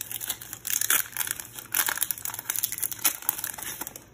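Foil wrapper of a Pokémon Crimson Invasion booster pack crinkling and tearing as it is torn open by hand. It makes a run of irregular crackly rustles that fades near the end.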